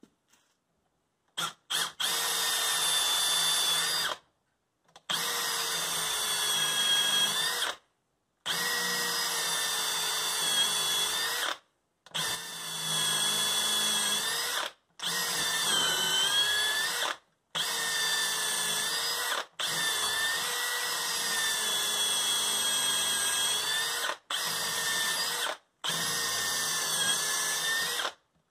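Cordless drill running in repeated stretches of a few seconds with brief stops, driven against a rusty hatchet head clamped in a vise. Its motor whine wavers and dips in pitch now and then as it bogs under load.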